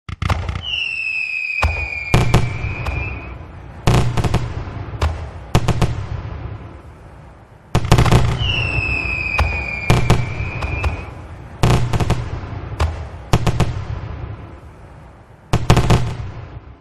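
Fireworks: a whistling firework gives a long whistle that falls slightly in pitch, then a string of sharp bangs follows, each trailing off in crackle. The same whistle-and-bangs sequence repeats from about eight seconds in.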